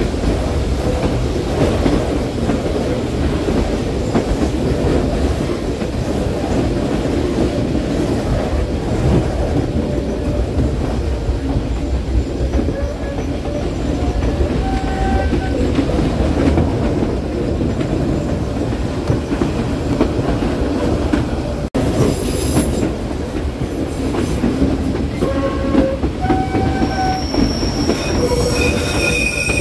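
Passenger train running on the rails, its wheels rumbling steadily. Short high-pitched wheel flange squeals come in as it rounds tight curves, more often and louder near the end.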